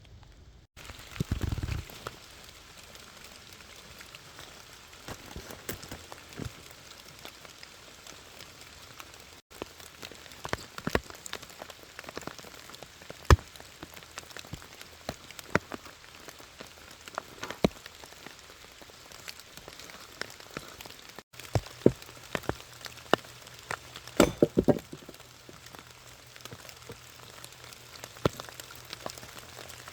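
Steady rain falling: an even hiss scattered with many sharp drop clicks, and a few louder pops in the second half. A brief low thud comes about a second and a half in.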